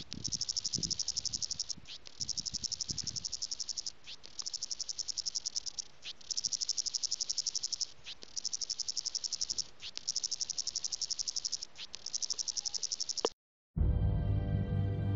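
Cicada calling: a rapid, high, pulsing buzz in repeated phrases of about two seconds each, broken by short gaps, the mating call of a male. Near the end it cuts off abruptly, and after a brief silence soft background music begins.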